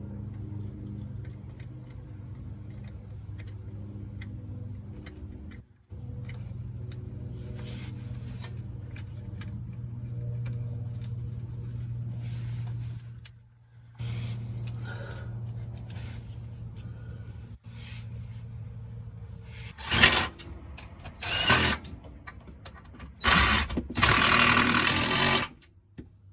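Power tool running in long spells as a steady low motor hum, then three short loud bursts in the last few seconds.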